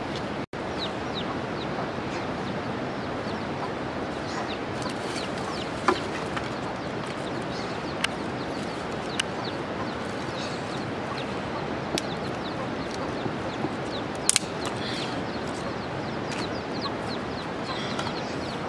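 Domestic chickens clucking with faint short high chirps over a steady outdoor hiss, broken by a few sharp clicks.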